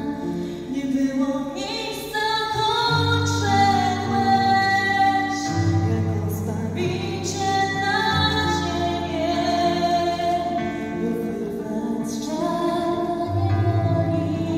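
Woman singing a Polish Christmas carol (kolęda) into a microphone, in long held notes, to electric keyboard accompaniment with sustained low chords.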